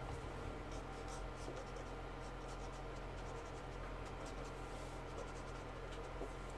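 Felt-tip marker nib rubbing on brown kraft paper in many short, faint strokes, blending out shading to make it smoother. A steady low hum runs underneath.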